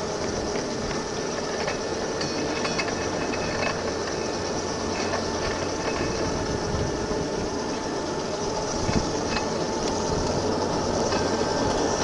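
5-inch gauge battery-electric model Sydney tramcar running along the track: steady rumble of steel wheels on the rails with a constant motor hum, and a single knock about nine seconds in.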